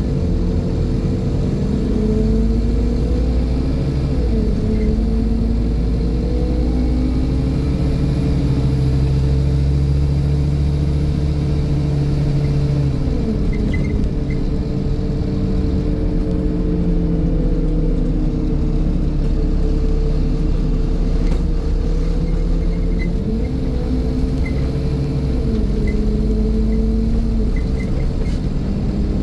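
Scania N230 bus's five-cylinder diesel engine running under way, its pitch climbing and dropping several times as the bus pulls away, changes gear and eases off. A steady buzz runs through it, with heavy low rumble underneath.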